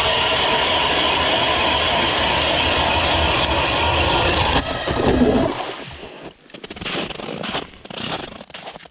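Power ice auger drilling through lake ice, its motor running steadily with the bit grinding out ice chips, then shutting off about five seconds in. Crunching footsteps on snow follow.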